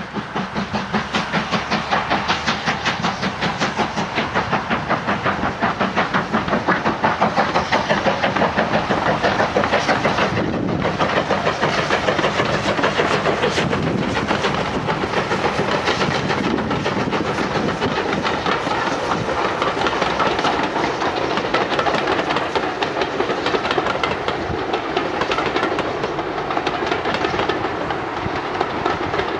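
Steam locomotive working a train hard, its exhaust beating in a rapid, even rhythm over the clatter of the wheels on the rails.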